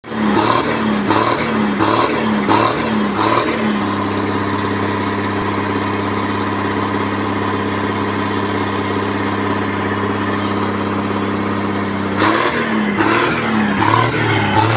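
Ashok Leyland truck's diesel engine heard at its short tailpipe: it is blipped in quick repeated revs for the first few seconds, settles to an even steady running note, then is blipped again near the end.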